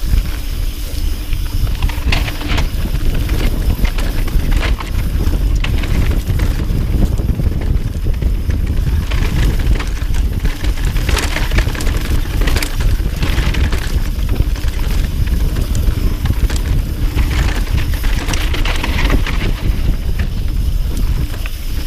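Mountain bike riding down a dry dirt trail: a steady low rumble of tyres and wind on the microphone, with many scattered clicks and rattles from the bike over rough ground.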